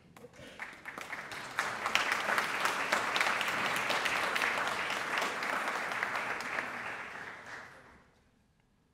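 Audience applauding: scattered claps that swell into steady applause about a second and a half in, then die away near the end.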